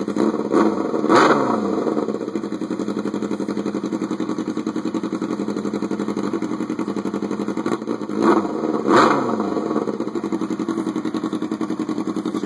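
2002 Yamaha R6 inline-four engine idling through a two-inch shorty MotoGP-style slip-on exhaust, insanely loud. The throttle is blipped twice about a second in and twice more around eight to nine seconds in, each rev rising sharply and falling back to idle.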